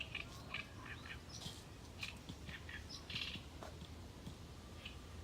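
Oriental reed warbler singing its harsh, chattering song of short repeated notes. A faint steady tone from a fire alarm runs underneath.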